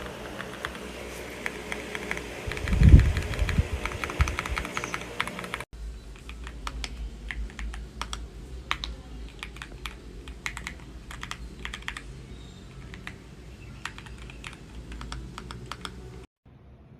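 Typing on an AULA F75 gasket-mounted 75% mechanical keyboard: a fast, irregular run of keystroke clacks. There is a loud low thump about three seconds in.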